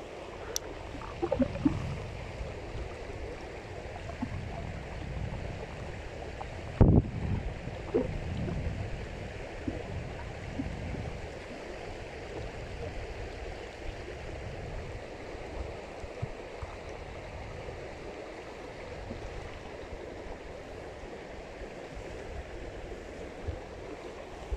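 River water flowing steadily. Near the start and again about seven seconds in there are a few low thumps, the loudest about seven seconds in.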